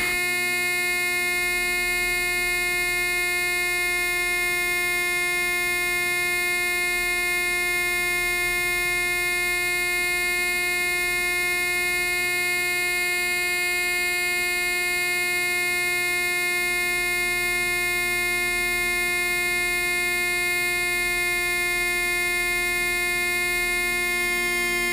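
A single steady electronic tone with a stack of overtones, held without change.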